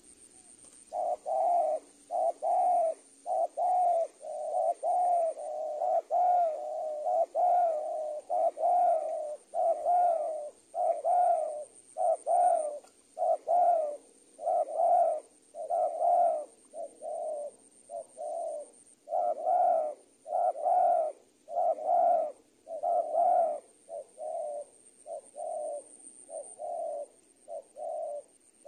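Spotted dove (tekukur) cooing over and over, its low coos coming about one a second in a steady run that starts about a second in.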